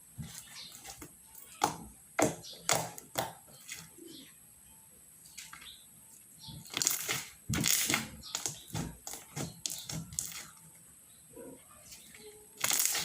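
Hands squishing and stretching a batch of slime, making irregular wet clicks and pops in quick clusters, with a couple of quieter pauses between them.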